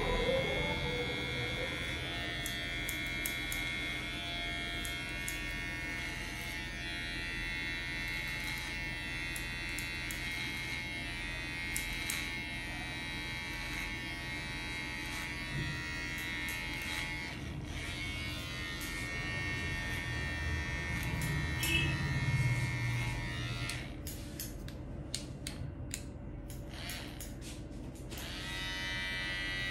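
Cordless electric hair clipper buzzing steadily while cutting a fade on the side of the head; the buzz drops away for a few seconds near the end.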